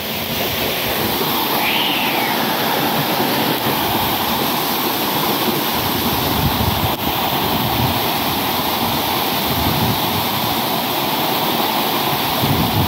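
Small waterfall pouring into a rocky pool: a steady rush of falling and splashing water.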